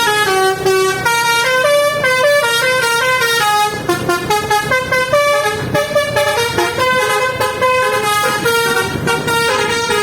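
Basuri telolet musical air horn on a bus playing a fast melody, a quick run of pitched horn notes that step up and down through the tune.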